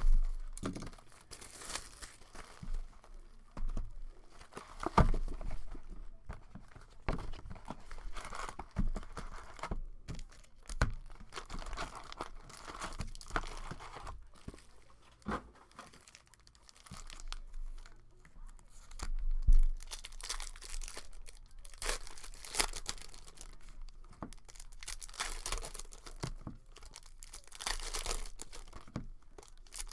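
Wrapping on a hockey-card hobby box and its card packs being torn open and crinkled by hand, in irregular spells of rustling, with a few sharp knocks, the loudest right at the start and another about two-thirds of the way through.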